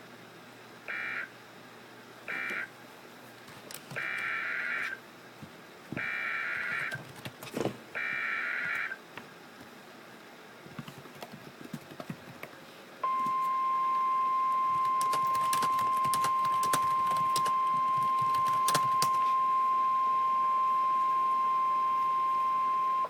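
Emergency Alert System signalling on NOAA Weather Radio. First come three short buzzy SAME data bursts, the end-of-message code, then three longer SAME header bursts announcing a new tropical storm warning. About 13 seconds in, the steady 1050 Hz weather radio alert tone starts and holds, louder, with a few faint clicks over it.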